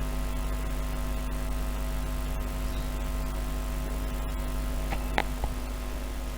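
Steady low electrical hum, mains-type, over faint background noise, with a couple of faint clicks about five seconds in.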